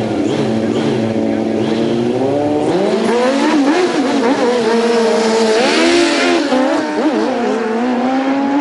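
Drag-racing motorcycle engine revving in short blips at the start line, then launching and climbing in pitch, dropping back at each of several gear changes as it runs down the strip.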